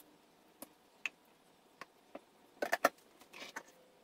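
Scattered light clicks and taps of a plastic blender jar and plastic cups being handled as a thick blueberry smoothie is poured out, with two louder knocks about two and a half seconds in.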